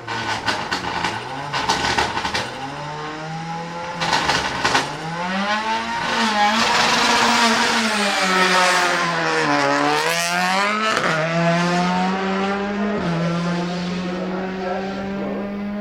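Peugeot 308 TCR's 1.6-litre turbocharged four-cylinder racing engine, popping and crackling from the exhaust in the first couple of seconds and again about four seconds in. Its pitch then rises and falls with the revs before holding fairly steady at high revs.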